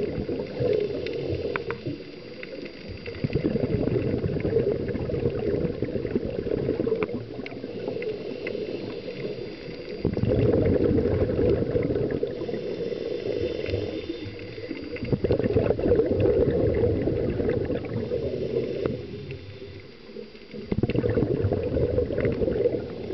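Scuba regulator exhaust bubbles rushing and gurgling underwater, heard through the camera housing. They come in surges a few seconds long, with short quieter gaps between, in the rhythm of a diver's breathing.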